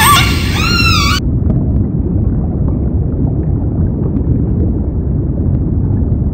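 Killer whale call: a whistling cry that glides up and down in pitch for about the first second, over a steady low underwater rumble that carries on through the rest.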